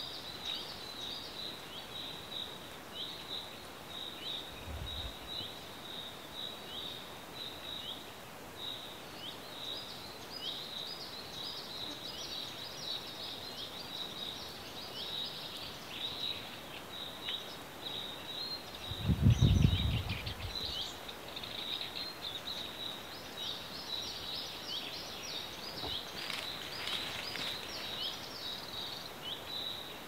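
A steady run of short, high, downward-sweeping chirps, several a second, over a faint outdoor hiss. About nineteen seconds in, a brief low rumble on the microphone is the loudest sound, and a fainter one comes a few seconds in.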